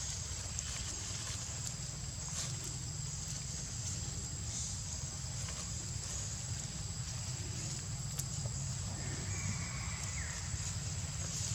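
Outdoor ambience: a steady low rumble under a steady high-pitched whine, with a few faint clicks.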